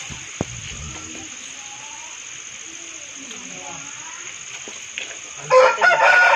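A rooster crowing loudly from about five and a half seconds in, in two drawn-out parts, over a steady high hiss with faint small-bird chirps in the seconds before.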